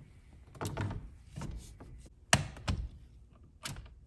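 A steering wheel being fitted onto the splined steering column shaft: about five dull knocks and taps, with the loudest, a sharp knock, a little past halfway.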